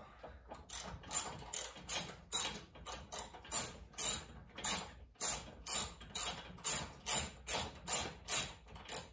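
Socket wrench ratchet clicking in quick back-and-forth strokes, about two a second, as a car's strut-tower bolts are loosened for removal.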